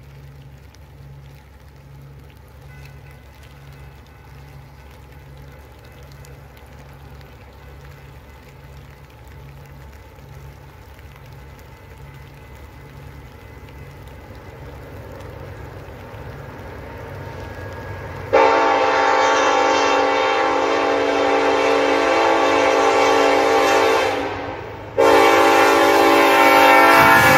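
Norfolk Southern diesel freight locomotives approaching, their low rumble growing steadily louder. About two-thirds of the way in, the lead locomotive's multi-chime air horn sounds two long, loud blasts with a brief break between them.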